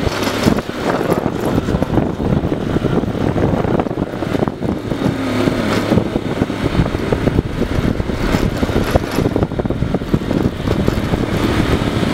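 Engine and road noise of a moving vehicle, a steady dense noise with uneven low pulses.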